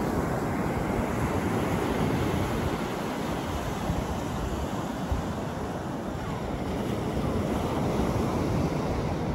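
North Sea surf washing onto a sandy beach in a steady wash of noise, with wind buffeting the microphone.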